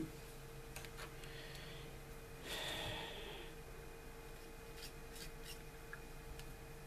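Small plastic model-kit parts handled in the fingers, giving a few faint light clicks, with a short breathy hiss about two and a half seconds in, over a steady low hum.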